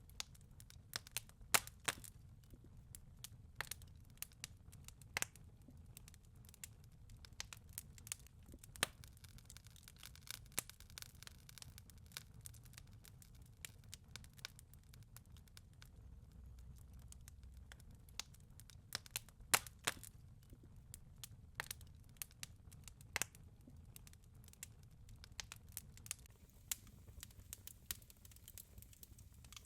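Fireplace fire crackling: irregular sharp pops and snaps over a low steady rumble, a few of them louder than the rest.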